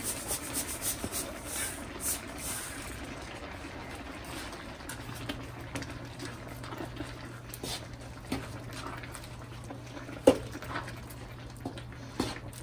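Granulated sugar pouring from a bowl into a pan of wet cooked grated carrot for the first couple of seconds, then a wooden spatula stirring and scraping the thick, milky mixture around a nonstick pan, with a sharp knock of the spatula against the pan about ten seconds in and another near the end.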